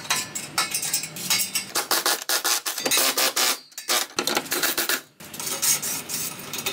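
Irregular metallic clinking and scraping as a titanium exhaust pipe section is unbolted and worked free from under the car, with two brief pauses after the middle.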